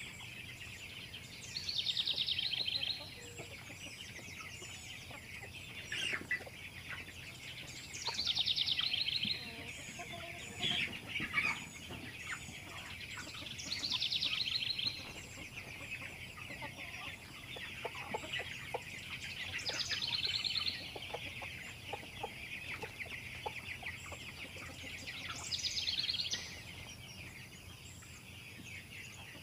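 A flock of young broiler chickens peeping and calling steadily, with a louder burst of high calls about every six seconds.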